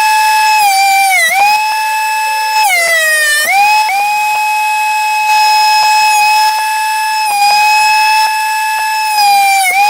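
High-pitched whine of an electric woodworking power tool's motor running steadily, its pitch sagging and recovering a few times as the tool is loaded by cutting into the wood, with a few small knocks.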